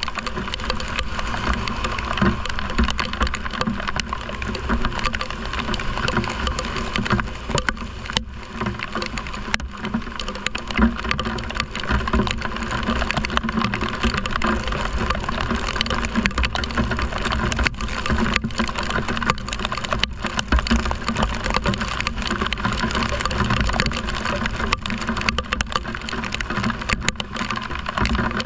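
Steady heavy rain, a continuous hiss with a low rumble underneath.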